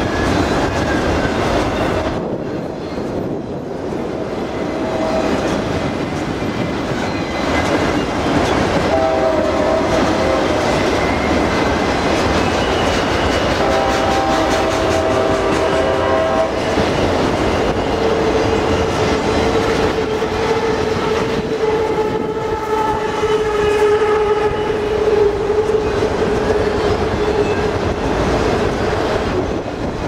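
Enclosed autorack freight cars rolling past, a steady rumble with the clickety-clack of steel wheels over rail joints. Sustained ringing tones come in and fade out twice, in the middle and later part.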